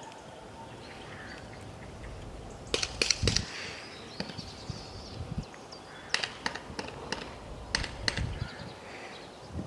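A horse's hooves on a sand arena under a rider, heard as a few short clusters of sharp knocks, with crows cawing in the background.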